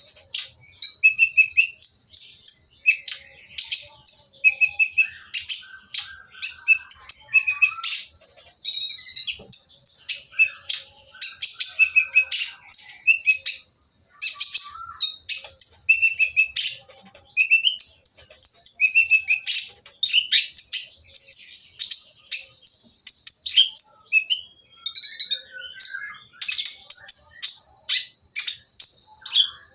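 Kolibri ninja sunbird singing a harsh, noisy song of rapid high chips and short trills, almost without pause. It is the kind of song used as a lure to set other konin singing.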